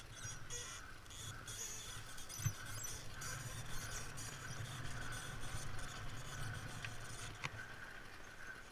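ATV engine running at low throttle with a steady low hum. Scattered clicks and knocks come from the quad rolling over rough ground.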